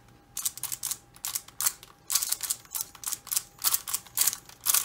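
Magnetic Xiaomi Giiker i3 smart cube having its faces turned quickly by hand to scramble it: a rapid, irregular run of plastic clicks, about four or five a second, starting about half a second in.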